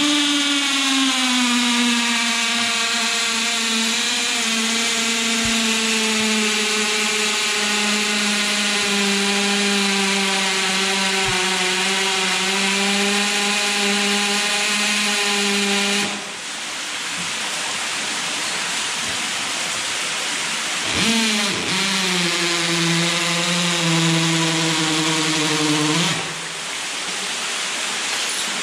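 Cordless drill boring an anchor-bolt hole into the cave's rock wall. It runs steadily for about sixteen seconds, its pitch dropping slightly as the bit bites, then stops, and after a short pause runs again for about five seconds.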